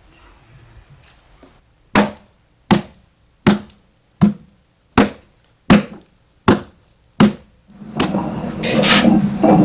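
Eight heavy strikes at a steady beat, about one every three quarters of a second, each with a short ringing tail. Louder mixed noise comes in near the end.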